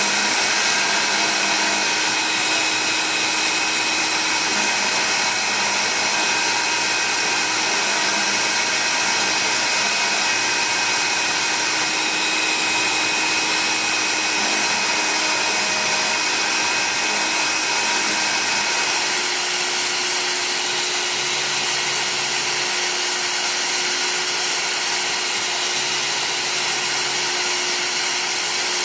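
CNC engraving machine cutting copper: a steady high-pitched whine of the spindle and cutter over a hiss, with short low tones that change pitch every second or so as the head moves. The mix of tones shifts about two-thirds of the way in.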